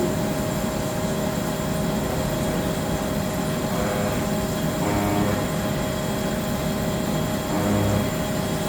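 Haas ST-35 CNC lathe running: a steady machine hum with a constant whine, and a low hum that swells briefly a few times.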